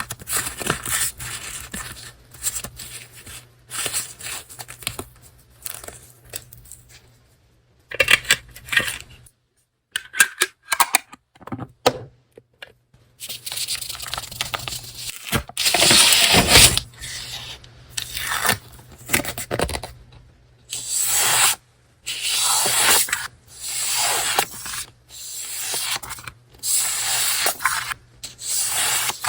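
Paper being handled and torn open, rustling and tearing in irregular bursts, with a brief pause partway through; near the end it settles into a run of strokes about a second each.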